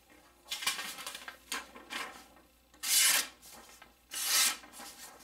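A budget mini Bowie fixed-blade knife slicing through a sheet of paper in about four quick strokes, each a short scratchy hiss, the third and fourth the loudest. The edge slices nicely, the sign of a sharp factory edge.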